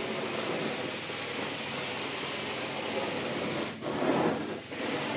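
Truck-mounted carpet-cleaning extraction wand with a hybrid glide, drawing vacuum through the carpet: a steady rushing hiss. The hiss breaks off briefly and changes about four seconds in.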